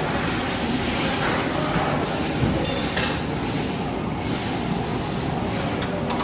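Steady mechanical rumble and hiss of workshop machinery, with a brief metallic clinking about three seconds in.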